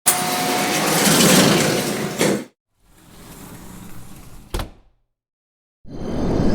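Slide transition sound effects played one after another: a loud sliding sound that starts abruptly and ends on a knock, then a quieter slide ending in a sharp click, then a third loud slide starting near the end.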